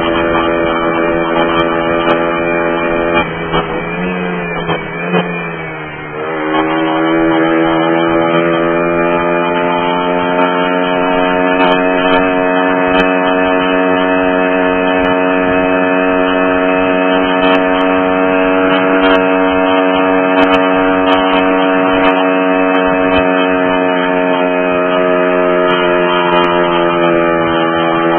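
Mash Fifty's small single-cylinder engine running under way. About three seconds in the note breaks up and drops for a few seconds, then climbs gradually and settles into a steady drone.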